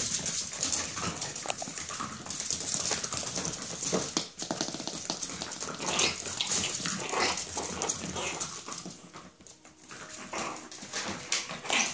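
7½-week-old Chihuahua puppies whimpering and yipping at each other while they play.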